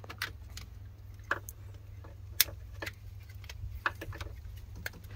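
Plastic wiring-harness connectors clicking and rattling as they are worked by hand at the car's vehicle control unit: a scatter of short sharp clicks, the loudest about halfway through, over a steady low hum.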